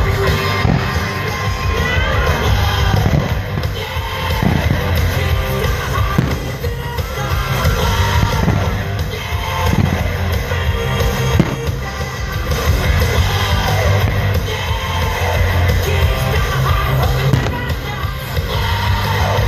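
Loud rock music with fireworks going off through it, with a few sharp bangs among the music.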